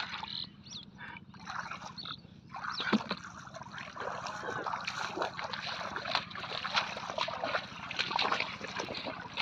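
Shallow muddy water splashing and sloshing as feet wade quickly through it, with dripping and trickling. The splashing is sparse at first and turns into a dense run of splashes from about two and a half seconds in.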